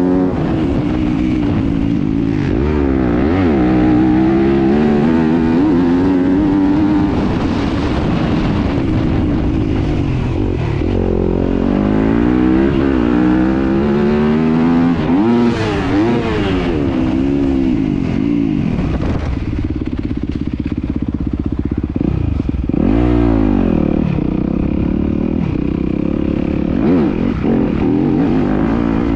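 Motocross dirt bike engine revving hard and backing off again and again as it accelerates, shifts and rolls off the throttle, rising and falling in pitch throughout.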